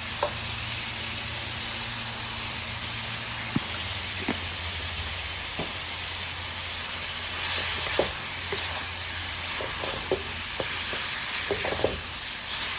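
Ground turkey sizzling as it fries in oil in a frying pan, a steady hiss with scattered light clicks and scrapes from stirring, growing louder for a moment about halfway through.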